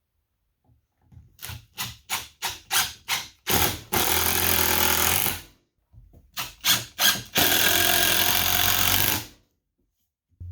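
Power driver driving two screws into wood: each starts with several short trigger pulses, then runs steadily for about two seconds.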